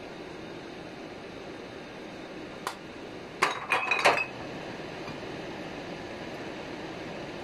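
One light clink, then a quick cluster of sharp glass-on-dish clinks with a brief ring about three and a half seconds in, over a steady background hum.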